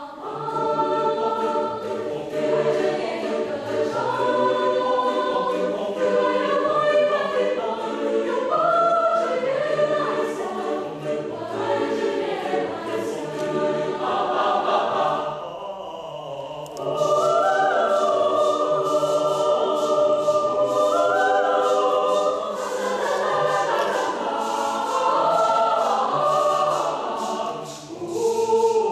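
Mixed school choir singing in several parts, with full sustained chords and moving lines. The sound thins briefly about halfway through, then the singing returns, with a fast run of crisp rhythmic ticks on top.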